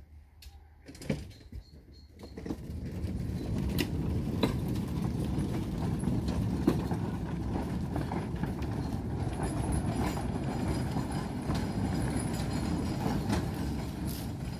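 Small garden-railway locomotive and wagon running along the track past the camera: a steady rumble of wheels on rail with occasional clicks. It comes up about two seconds in and eases a little near the end as the train moves away.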